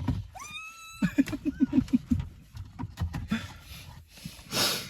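A woman's high excited squeal that rises and then holds for about half a second, followed by a run of quick, breathy laughs.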